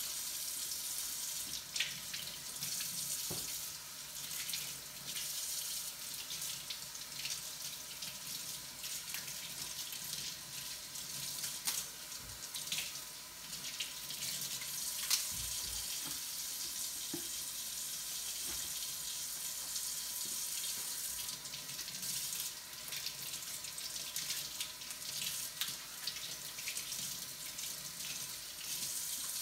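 Kitchen tap running into a sink as beet greens are rinsed under it to wash off mud, a steady hiss and splash with a few light knocks.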